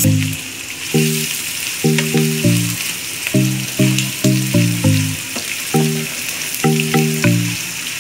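Sliced onions and whole spices sizzling as they fry in hot mustard oil in a pan, with a wooden spatula scraping and clicking as it stirs. Background music of short, plucked-sounding notes in quick groups plays over it and is the loudest part.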